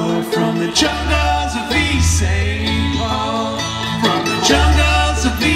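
Bluegrass band playing an instrumental break on banjo, acoustic guitar and fiddle, with a steady bass line underneath.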